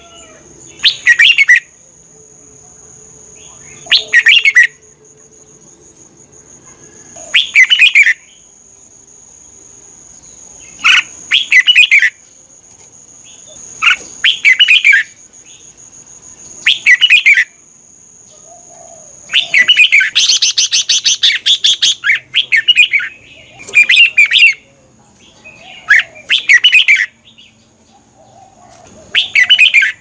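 Red-whiskered bulbul singing in short, loud song phrases about every three seconds. About twenty seconds in, one longer phrase of rapid repeated notes.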